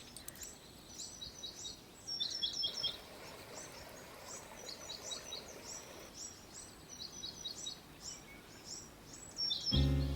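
Songbirds chirping repeatedly: short high notes that drop in pitch, often in quick runs of three or four, over a faint steady hiss. Music comes in near the end.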